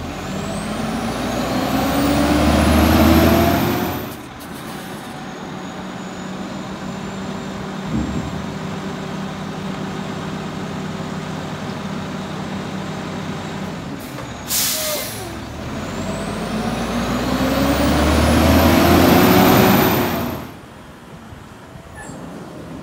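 Front-loading garbage truck's diesel engine revving up twice, each time with a rising whine, and running steadily in between. A short sharp hiss of its air brakes comes just before the second rev.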